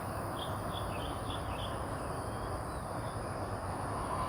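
Steady outdoor background noise, with a quick run of faint high chirps from about half a second to a second and a half in.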